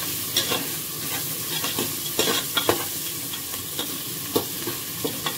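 Sliced onions, green chillies and whole spices sizzling in oil and ghee in a pressure cooker, while a perforated metal spatula scrapes and clinks irregularly against the pot as they are stirred. The onions are being fried until lightly browned, which gives bagara rice its colour.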